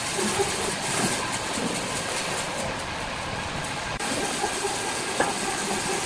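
Sawmill machinery running: a steady mechanical drone with hiss and a wavering hum, and a single sharp click about five seconds in.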